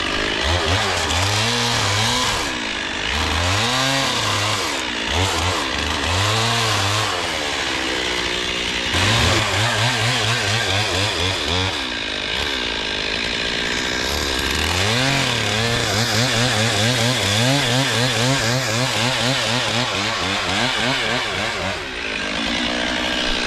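Chainsaw running and cutting, throttled up and down in several short bursts, then held at high revs for longer runs of a few seconds each.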